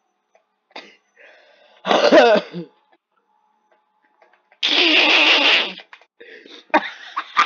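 A cat shut in a soft pet carrier letting out two loud, strained cries: a short wavering one about two seconds in, and a longer, rougher one around five seconds in, followed by short choppy sounds near the end.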